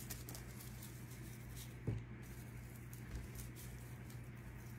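Faint crackles and small clicks of dried stems being handled and worked with small hand snips, with one soft knock about two seconds in, over a steady low hum.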